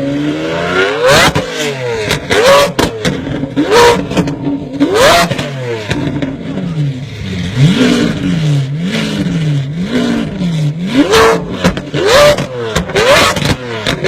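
Lamborghini Aventador's V12 being revved while standing still: a series of sharp throttle blips, each rising quickly and falling back, with a run of quick back-to-back revs about halfway through. Many revs end in a sharp crack.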